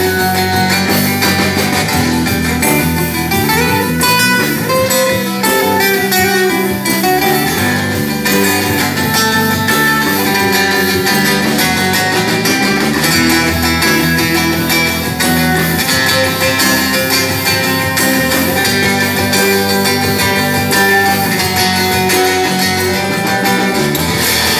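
Live band music led by an amplified acoustic-electric guitar, played loud with quick, changing melodic notes and no singing.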